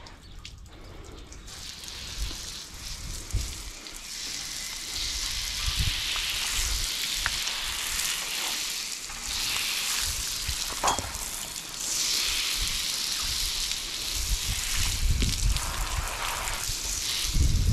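Water hissing from a garden hose spray nozzle as it sprays onto a horse's wet coat, starting about a second and a half in, with a few short lulls.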